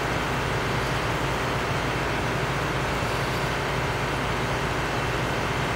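Steady low hum under an even hiss: the room tone of running electronic test gear, with no distinct events.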